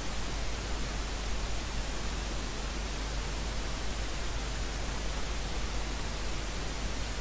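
Steady hiss with a low hum beneath it, like static on an audio line. No voice or film soundtrack stands out.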